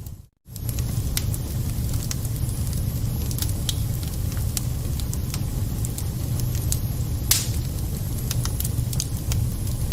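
Wood fire burning in a fireplace: a steady low rumble of flames with scattered sharp crackles and pops, one louder pop about seven seconds in. The sound cuts out for a split second just after the start.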